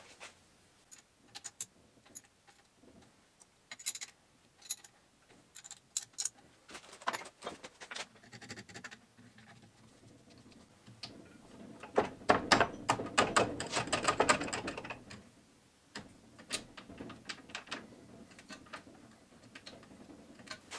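Small metal clicks and rattles of gear-shift parts being fitted by hand to an Argo 8x8's aluminium gearbox casing, with a louder spell of rapid clicking and rattling about twelve seconds in.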